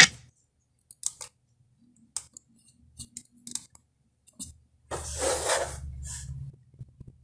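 Music stops abruptly, followed by a few faint clicks of plastic buttons being pressed on a GoTo M300 car radio's faceplate while it switches source. Near the end comes a hiss with a low hum, lasting about a second and a half.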